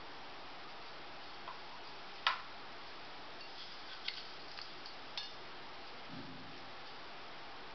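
Faint steady room hiss with a few scattered light clicks, the sharpest about two seconds in, and a soft low bump about six seconds in.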